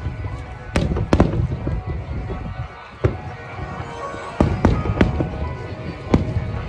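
Aerial fireworks bursting in a rapid series of sharp bangs, each with an echoing tail, with a short lull about two to three seconds in; music plays underneath.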